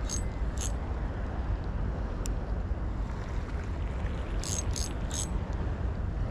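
Wind buffeting the microphone as a steady low rumble, with a few short high-pitched chirps or clicks near the start and three more about four and a half to five seconds in.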